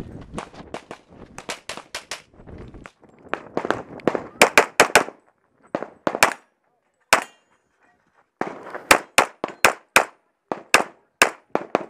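Semi-automatic pistol fired rapidly, mostly in quick double taps a fraction of a second apart, with a short pause near the middle. The first shots are quieter, the later ones much louder and sharper.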